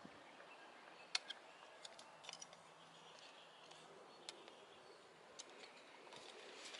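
Near silence, with a few faint, sharp clicks and taps scattered through it.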